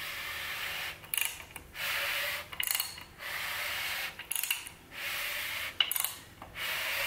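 Crankshaft of a freshly assembled LS V8 short block being turned over by hand with a ratchet, in repeated strokes about every one and a half seconds. Each stroke is a steady rub as the rotating assembly turns, followed by a quick run of ratchet clicks on the back-stroke. This is a check that nothing hits and there are no tight spots.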